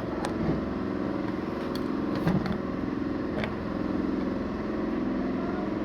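A steady engine drone, with a few light clicks scattered through it.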